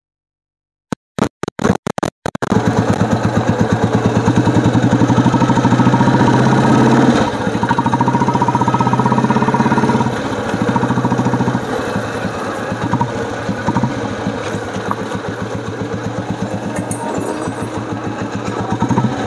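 A Royal Enfield Bullet's single-cylinder engine running with its even thumping beat. It opens with a few short bursts, runs loudest for about five seconds, then drops off in steps and carries on lower.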